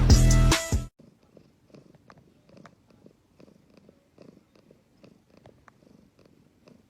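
A domestic cat purring, a faint low rhythmic rumble, after a burst of music that cuts off abruptly just under a second in.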